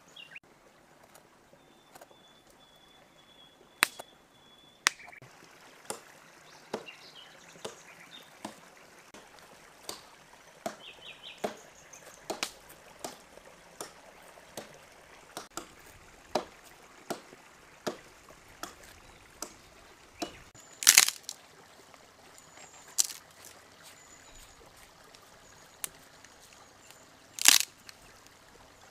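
Knife and meat cleaver cutting raw lamb ribs on a stone: a string of short, sharp cutting clicks about once a second, and two louder bursts of chopping strikes, the second near the end. Faint bird chirps.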